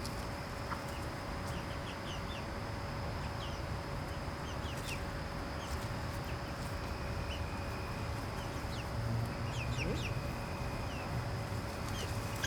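Young backyard chickens clucking and peeping as they forage, short scattered calls throughout, over a steady low background rumble.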